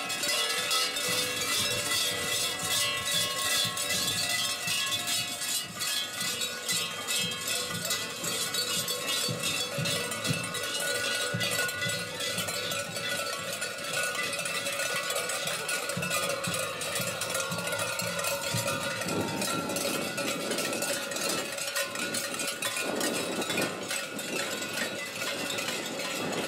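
Large cowbells on a kurent's sheepskin costume clanging continuously as he walks, a dense jangle of many ringing metal tones.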